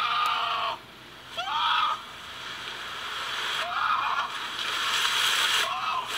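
A young man's short wailing cries and shouts, a few times, over a growing hiss of water rushing and splashing from a pool wrecked by a pickup truck. A steady high whine cuts off under a second in.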